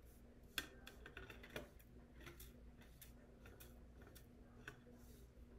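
Faint scattered ticks of loose rhinestones being swept with a small brush across a metal scoop, with two slightly louder clicks about half a second and a second and a half in, over a faint steady hum.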